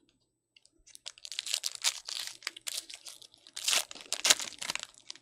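Trading-card pack wrapper crinkling and tearing as it is opened, with a run of sharp crackles starting about a second in and loudest near the end.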